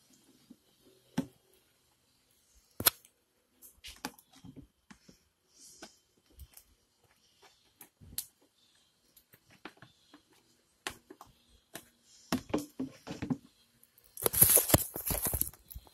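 Scattered sharp clicks, taps and light rustles of close-up handling, with a burst of louder rustling near the end.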